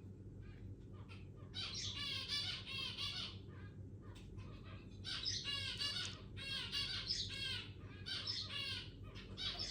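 Zebra finch chick giving rapid, wavering begging calls in repeated bursts of up to a second each: a hungry chick asking for food while being hand-fed.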